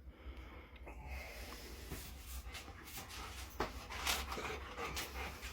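Short, faint breathy sniffs and snorts, a little louder about four seconds in, over a steady low hum.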